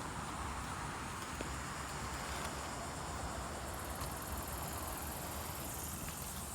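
Steady hum and fan noise of an outdoor central air-conditioner condenser unit running in cooling mode, heard from a distance, with an even hiss over a low hum.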